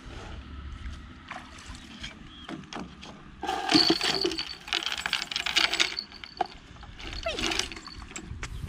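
Water splashing and sloshing around a bamboo raft as it is brought in to the bank and moored, with handling noise from the mooring line. The noise swells loudest for a couple of seconds about midway and comes again briefly near the end.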